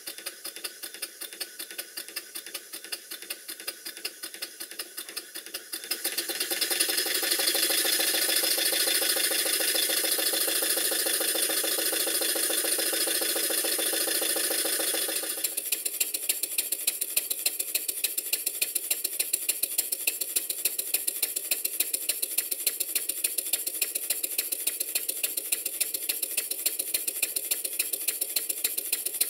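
Stuart No. 1 model steam engine, a single-cylinder vertical engine, running steadily with a rapid, even beat and light mechanical clatter. It runs smoothly, its main bearing top cap adjusted to clamp slightly tighter on the crankshaft. The sound grows louder about six seconds in and drops back about fifteen seconds in.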